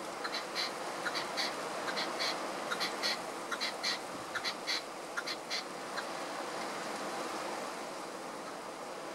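Red-legged partridge calling: a rapid run of short, sharp chirping notes, three or four a second, that stops about six seconds in, over a steady outdoor hiss.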